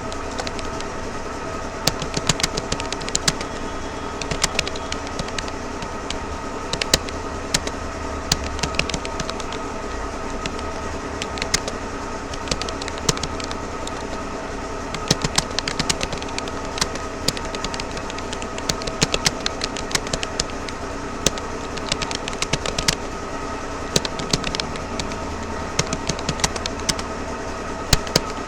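Typing on a Rapoo computer keyboard: irregular runs of quick key clicks with short pauses between words, over a steady droning hum.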